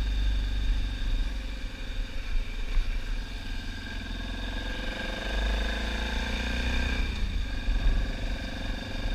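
BMW F650GS motorcycle engine running at road speed, heard from the bike itself, with heavy wind rumble on the microphone. The engine pitch rises a little past the middle.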